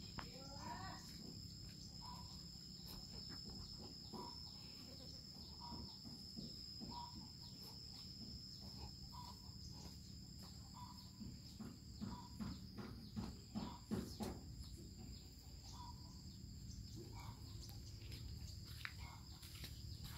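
A steady high insect drone with a short call repeating about once a second. Around the middle comes a run of light scuffs and taps, animals moving on packed dirt.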